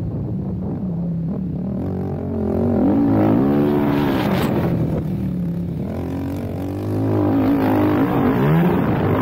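Suzuki LTR 450 quad's single-cylinder four-stroke engine under way, its revs rising and falling on and off the throttle. It pulls louder about two seconds in and again around seven seconds.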